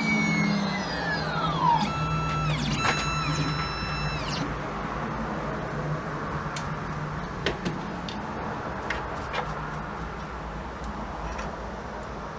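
Electronic key-cutting machine cutting a key by code and finishing: its motor whine falls in pitch and stops within the first two seconds, then two more short whirs that also wind down. After that only a faint hum with a few light clicks.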